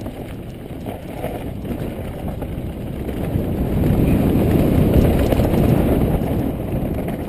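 Downhill mountain bike riding fast over a rough dirt trail: tyres rumbling and the bike rattling, mixed with wind buffeting the action camera's microphone. A dense low rumble that grows louder about halfway through and eases off near the end.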